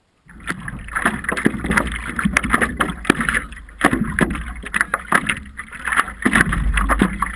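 Sea water splashing and slapping against a stand-up paddleboard in small waves, with many sharp knocks and wind rumbling on the microphone. It starts abruptly just after the beginning.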